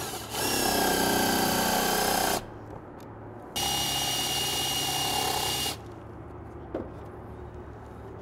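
Power drill driving the skylight dome's fastening screws through plastic spacers into the metal flashing: two steady whining runs of about two seconds each, the second a little quieter.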